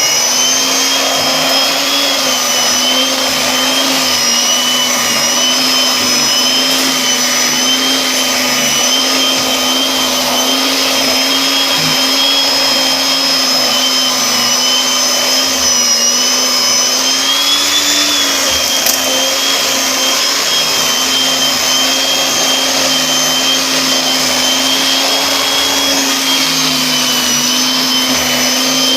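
Vacuum cleaner running steadily, its motor giving a continuous high whine whose pitch wavers slightly now and then.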